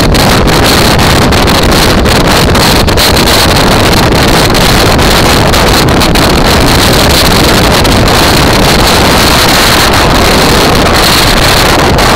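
Loud, steady wind rush on the microphone of a motorcycle-mounted camera while riding, mixed with the bike's engine and road noise.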